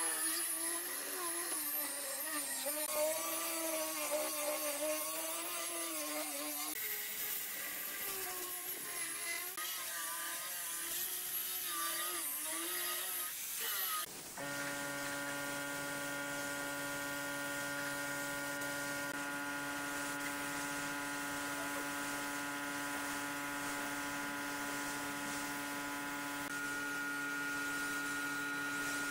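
Electric angle grinder with a sanding disc sanding pine pallet boards, its whine wavering in pitch as it is pressed into the wood. About fourteen seconds in, the sound changes abruptly to a steady hum made of several fixed tones, with a faint hiss.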